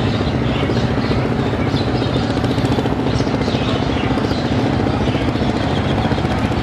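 Diesel engine of a river passenger launch running steadily at speed, with a fast even pulsing.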